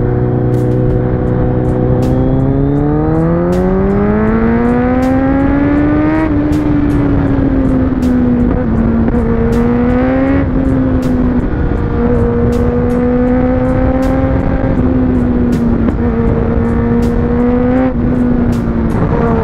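Motorcycle engine accelerating hard as the rider opens the throttle. Its pitch climbs steeply for a few seconds, drops back briefly twice, then holds near a steady cruise with small throttle changes.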